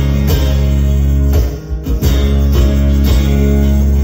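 Acoustic guitar played live, strumming chords in an instrumental passage without vocals, with a brief dip in level about one and a half seconds in.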